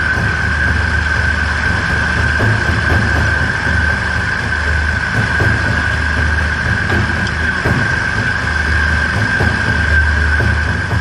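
Light aircraft's four-cylinder Lycoming engine and propeller (Socata Rallye MS.892A Commodore 150) running at low power while taxiing, heard from inside the cockpit as a low, uneven rumble under a steady high whine.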